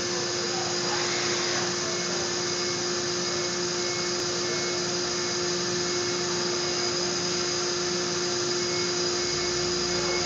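Injection molding cell machinery running: a steady, even noise with a constant mid-pitched hum and a high whine over a hiss.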